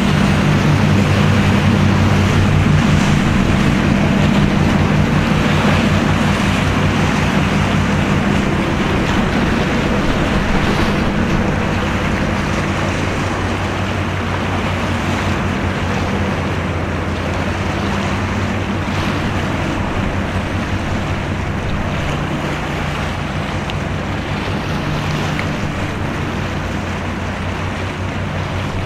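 Low steady drone of a vessel's engines, strongest in the first half and slowly fading, under a constant rush of wind on the microphone and moving water.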